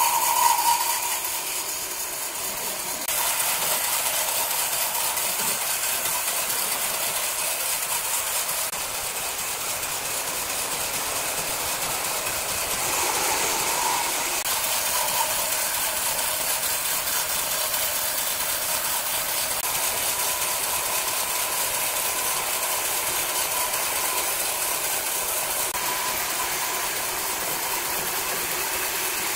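Horizontal band sawmill running, a steady high-pitched hiss with a faint whine, as its band blade works along a large hardwood beam. The sound changes abruptly a few times.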